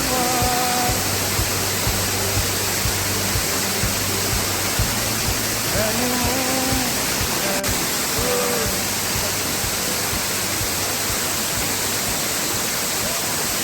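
Steady roar of a waterfall with music over it: a low regular beat and a few held notes in the first second and again about halfway through.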